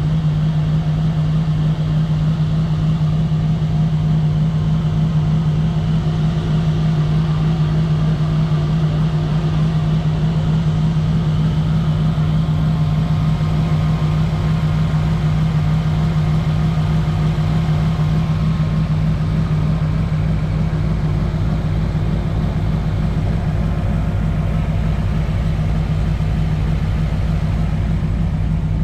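Car engine idling steadily: a constant low hum that holds one pitch, with no revving.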